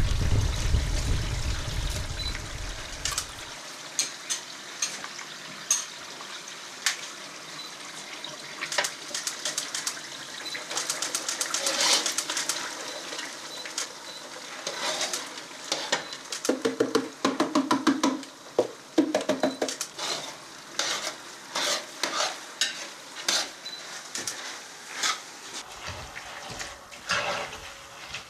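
Onions and grated carrots frying and sizzling in a large metal pot on a wood-fired stove, stirred with a spoon that clicks and scrapes against the pot again and again. A low rumble is heard for the first few seconds.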